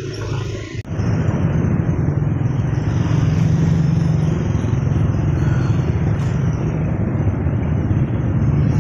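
Street traffic of motorcycles and motorized tricycles heard from a moving bicycle: a steady engine drone with a low rumble, starting abruptly about a second in after a brief drop.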